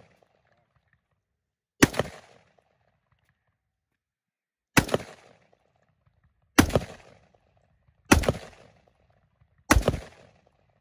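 Colt M4 carbine in 5.56 mm firing five single shots at uneven intervals of about one and a half to three seconds. Each sharp report trails off over about half a second.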